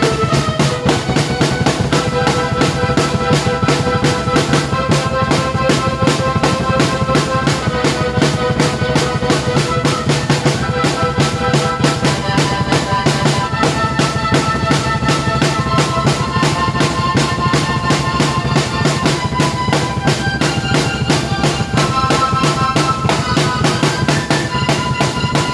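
Drum kit played along with a keyboard: a busy, steady drum pattern with bass drum and snare over held keyboard chords that change every couple of seconds.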